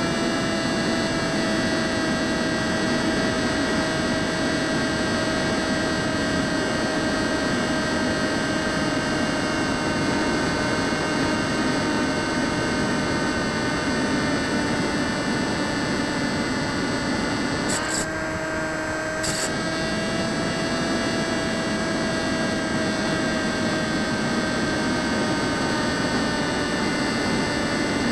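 Electric motor and propeller of an RC model plane whining steadily in flight, heard from the onboard camera over a rush of air. The pitch drifts slowly, and about two thirds of the way through the whine dips briefly for a second or so before picking up again.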